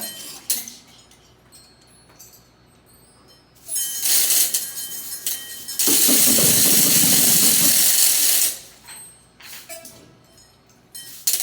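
Cartoon sound effects made by hand on classroom percussion and noisemakers: a few scattered clicks, then a short noisy burst about four seconds in. About six seconds in comes a loud, steady hiss lasting about two and a half seconds, followed by more clicks near the end.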